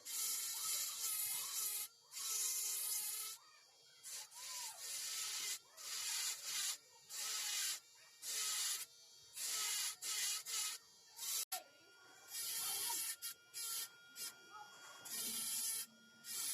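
Hand tool rasping or sanding on wood in repeated uneven strokes, roughly one a second, each a short scrape with brief pauses between.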